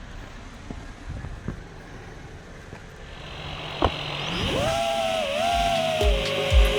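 Faint, steady background at first. From about halfway a hiss and a rising, wavering tone swell in, and near the end a regular low thumping beat of about two a second joins: music starting.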